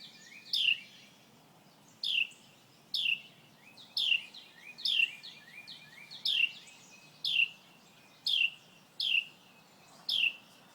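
Small songbird singing a run of clear notes, each sliding down in pitch, repeated about once a second.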